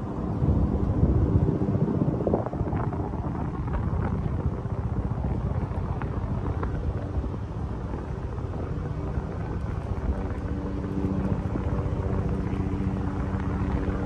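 Steady low engine drone, a rumble with several steady hum tones, louder for the first few seconds.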